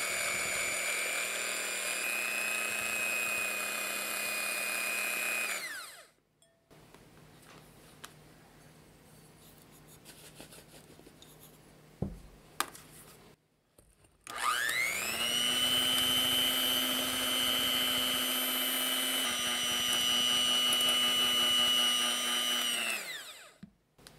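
Electric hand mixer beating egg whites in a glass bowl, in the first stage of a meringue: the motor runs with a steady whine, then stops about six seconds in. After a quieter gap with a couple of faint taps while sugar goes in, it starts again with a rising whine, runs steadily, and winds down near the end.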